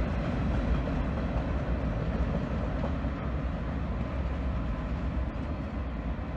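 Freight train's boxcars rolling by on the track, a steady low rumble of wheels on rails.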